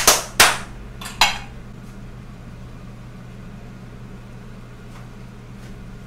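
Three sharp clatters of kitchenware in the first second and a half, as a plate is set on the counter and a frying pan is handled, each with a short ring. A steady low hum follows.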